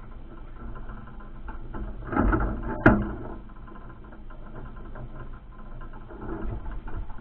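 Water dripping and splashing off a wire crab trap as it hangs from its rope over a boat's side. There is a louder rush about two seconds in, then a single sharp knock.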